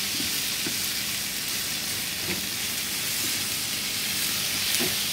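Rice frying in oil with tomato, onion and green chile in a pan, sizzling steadily as a wooden spoon stirs through it.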